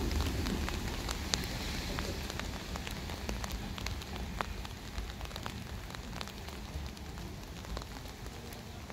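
Rain falling, with scattered drops tapping sharply close by, over a low rumble that slowly fades away.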